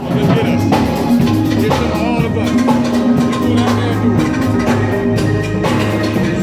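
Music with a drum kit keeping a steady beat under sustained pitched instrument notes, starting abruptly at the beginning.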